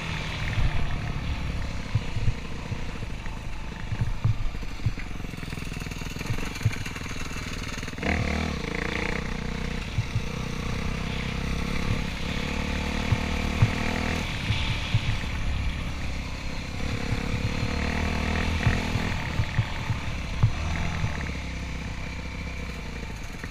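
Dirt bike engine running while being ridden over a rocky trail, its revs rising and falling several times, with scattered knocks as the bike jolts over rough ground.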